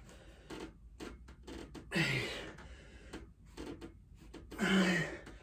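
A man's voice grunting with hard, breathy exhalations on the effort of pull-up reps, twice about two and a half seconds apart, each falling in pitch.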